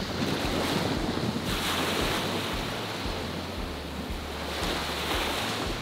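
Small waves breaking and washing up onto a sandy beach, the surf swelling about a second and a half in. Wind rumbles on the microphone underneath.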